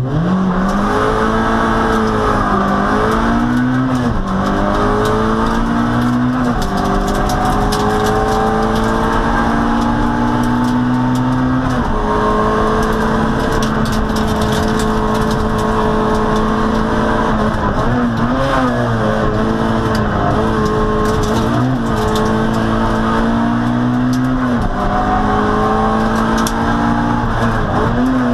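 Peugeot 106 N1 hillclimb car's engine driven hard under full throttle. The pitch climbs and then drops sharply at each gearshift several times, with one long pull in the middle. Near the end come a few brief lifts and re-accelerations.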